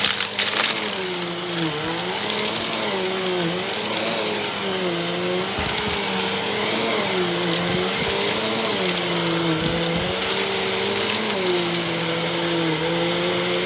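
Vacuum cleaner running on a dusty rug, its motor hum dipping briefly in pitch every second or so as it takes up load, over a thin steady high whine. A few crackles come near the start.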